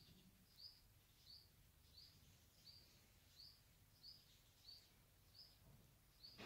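A small bird chirping faintly, one short high chirp about every two-thirds of a second, very regular, with a soft bump right at the end.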